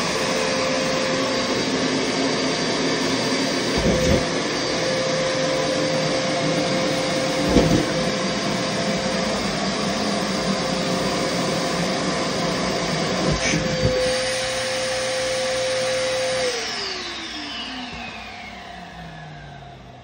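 Vacuum cleaner running steadily with a hum, drawing T-shirts into its wide hose nozzle, with a few brief knocks along the way. About 16 seconds in it is switched off and its whine falls as the motor winds down.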